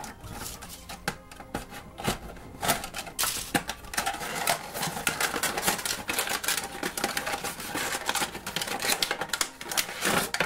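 Cardboard gift box being opened by hand and its clear plastic tray handled: dense, irregular clicks, taps and crinkles of card flaps and thin plastic packaging.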